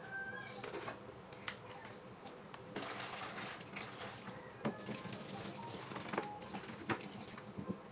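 Dishes being washed at a kitchen sink: tap water running in spells, with plastic containers and a pot knocking and clattering against the sink several times.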